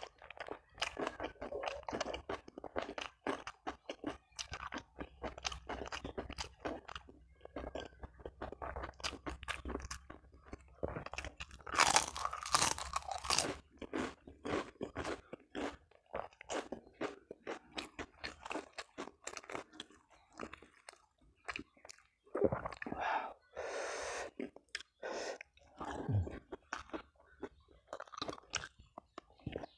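A person chewing and crunching food close to clip-on microphones: a steady run of crisp crunchy bites, louder for a couple of seconds about twelve seconds in.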